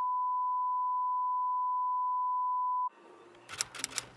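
Steady television test-tone beep, the one that goes with colour bars, held for about three seconds and then cut off suddenly. About half a second later comes a quick run of typewriter key clicks.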